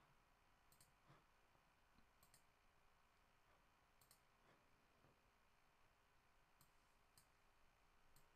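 Near silence broken by a few faint, scattered clicks of a computer keyboard being typed on.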